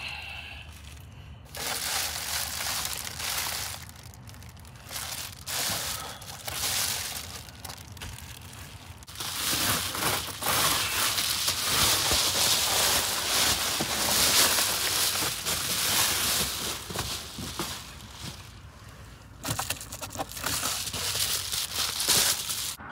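Reflective foil window covers crinkling and crumpling as they are handled and pulled from the van's windows, in uneven bursts with a long busy stretch in the middle.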